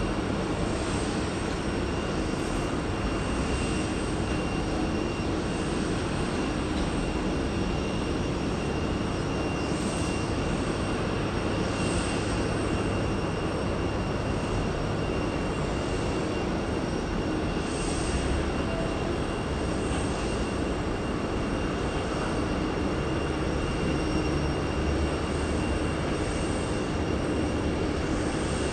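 A FedEx McDonnell Douglas MD-11 freighter's jet engines running at taxi power as it rolls slowly along the taxiway: a steady rumble with a thin, constant whine.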